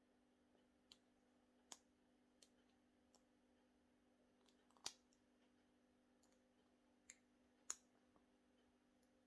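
Faint, scattered small metallic clicks of a lock pick and tension wrench working the pins of an Abus 82/90 six-pin brass shutter padlock during single pin picking, with two louder clicks about halfway through and near the end.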